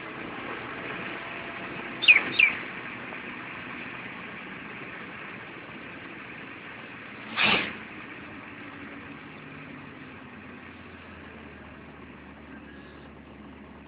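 Steady vehicle and road noise that slowly fades, broken about two seconds in by two quick, sharp chirps falling in pitch, and by a short rush of noise around the middle.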